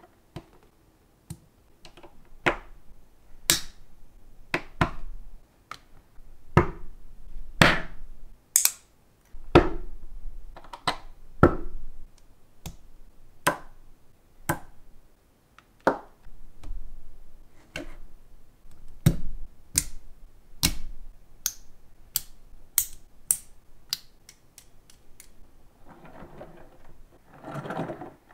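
Lego Technic beams and bricks pressed and snapped together by hand: a series of sharp plastic clicks at uneven intervals, roughly one every second. Near the end comes a longer rattling rumble as a small wheeled Lego frame is rolled along the plastic rail.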